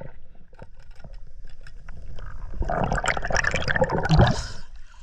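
Muffled underwater sound of a river with scattered faint clicks, then water splashing and rushing loudly from about two and a half seconds in as the camera breaks the surface.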